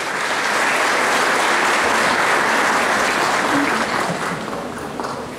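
Audience applauding, the clapping thinning out and dying down near the end.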